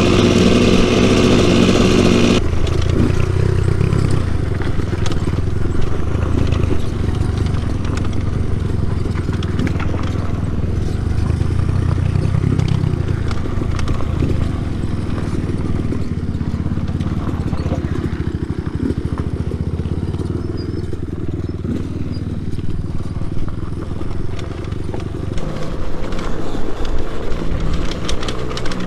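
Dirt bike engine running on a trail. A loud, high-revving note cuts off suddenly about two seconds in, leaving a lower engine drone that rises and falls under many small clicks and knocks.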